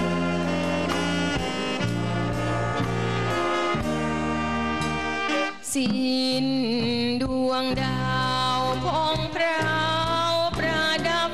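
Thai dance band with a saxophone section, brass and bass guitar playing an instrumental passage of a slow luk krung ballad. The band dips briefly about halfway through, then a single wavering melody line leads over the accompaniment.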